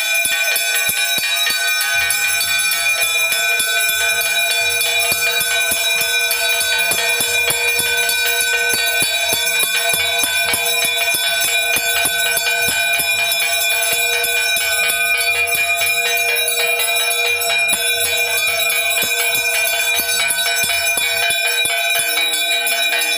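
Large hanging brass temple bell rung continuously with rapid strikes for the evening aarti, its ringing tones overlapping into a steady clang. A low rhythmic pulse runs beneath it from about two seconds in until near the end.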